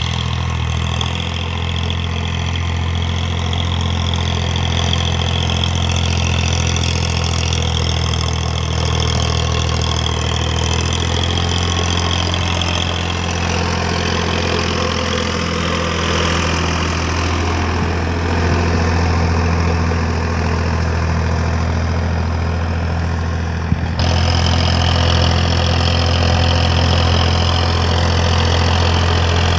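Farmtrac 60 EPI tractor's diesel engine running steadily under load while pulling a disc harrow through dry soil. About three-quarters of the way through, the sound changes abruptly and gets a little louder.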